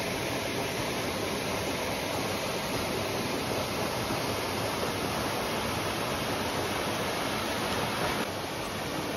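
Steady rush of water from White Oak Canyon's lower falls, a small cascade sliding down rock slabs into a pool.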